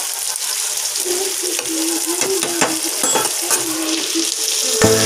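Chopped onions sizzling in hot oil in a frying pan, with a metal spatula scraping and stirring them in short strokes.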